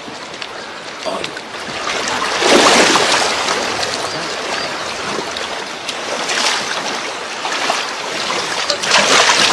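Several people wading through a river, water splashing and sloshing around their legs, with louder surges of splashing about two and a half seconds in and again near the end.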